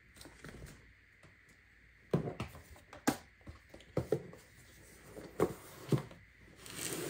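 Cardboard iPad Pro box handled on a desk: a string of light knocks and taps as the box is set down and moved, then a short sliding scrape near the end as it is pushed across the desktop.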